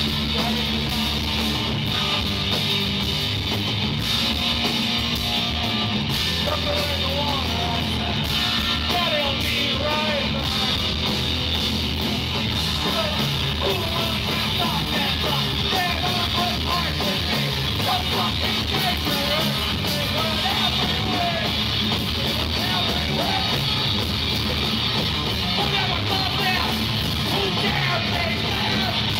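Live rock band playing loudly: electric guitars, bass and drum kit, with a singer yelling the vocal into a microphone.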